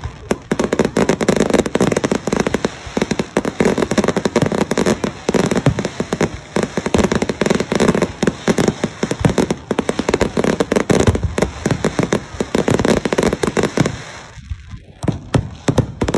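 Aerial fireworks display: a dense, rapid stream of overlapping bangs and crackles from bursting shells, easing briefly near the end before picking up again.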